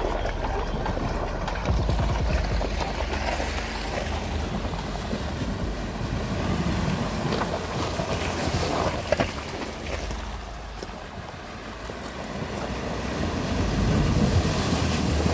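Jeep Wranglers driving through a shallow creek ford: engines running and tyres churning and splashing through the water. It grows louder toward the end as another Jeep pushes a wave of water through the crossing.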